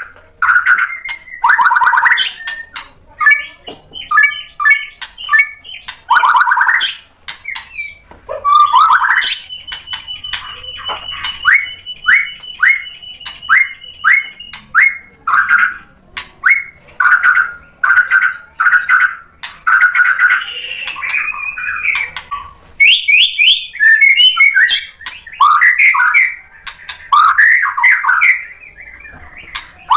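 A white-rumped shama singing loudly in full song, running through its varied repertoire of whistled phrases, trills and harsh chattering notes in quick succession with short pauses. About ten seconds in it delivers a long run of quick repeated notes under a held high whistle.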